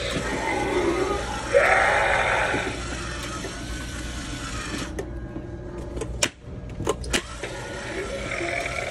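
Animatronic Halloween prop's recorded raspy, growling voice playing through its speaker, loudest in a growl about a second and a half in. A few sharp clicks come in a brief lull around six to seven seconds, and the voice starts again near the end.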